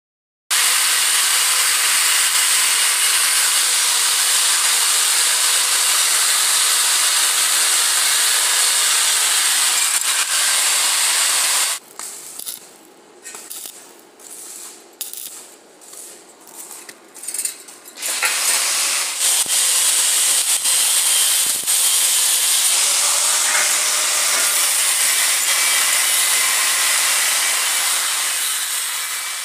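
Stick (arc) welding on steel pipe: the electrode arc hisses and crackles steadily for about twelve seconds, breaks into a run of short, stuttering bursts for about six seconds as the arc is struck and broken, then hisses steadily again, fading near the end.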